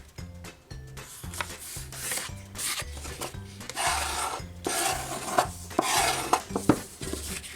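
Sheets of paper being folded in half and creased one by one: several rubbing swishes of paper sliding on paper, with a few light taps. Background music with a steady beat plays throughout.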